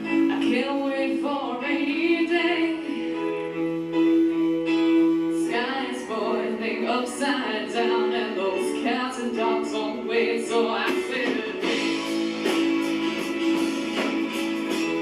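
Rock band playing a slow song live: a woman singing over guitar and sustained chords.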